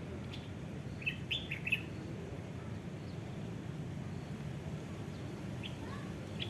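Small birds chirping: a single chirp near the start, a quick cluster of four chirps about a second in, and a couple more near the end, over a steady low background noise.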